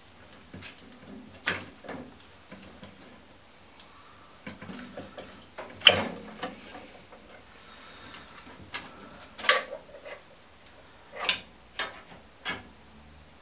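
Sharp plastic clicks and small knocks as wire connectors are pulled off the control circuit board of a Baxi Solo 2 boiler. They come at irregular intervals, the loudest about six seconds in and a cluster near the end.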